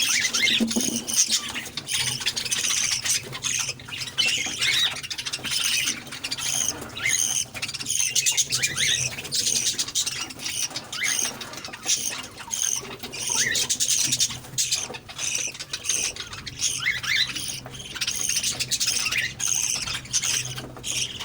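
Pet Australian parrots chattering, with many short, high chirps and squawks overlapping without a break. A faint steady low hum sits underneath.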